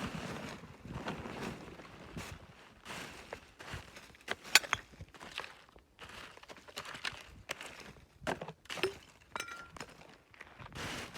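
Footsteps and rustling with scattered clicks and clinks of hard objects being handled; one sharp click about four and a half seconds in is the loudest.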